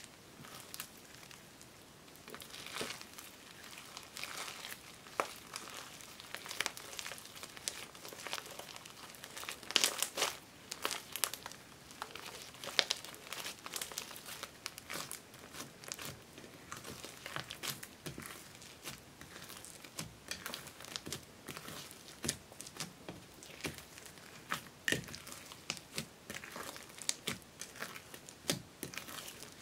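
Fluffy slime with foam beads being kneaded, squeezed and stretched by hand in a glass dish: a continuous run of irregular wet crackles and pops, busiest about ten to thirteen seconds in.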